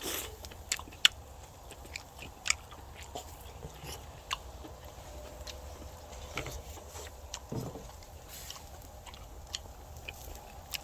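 A person chewing a mouthful of chewy grilled black pork, with scattered short sharp clicks over a steady low rumble.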